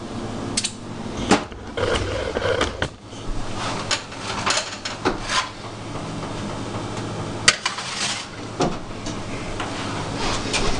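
Clattering and knocks of a round metal baking pan holding tuna cans of cake batter as it is put into an oven. A sharp clunk about three-quarters of the way through is likely the oven door shutting.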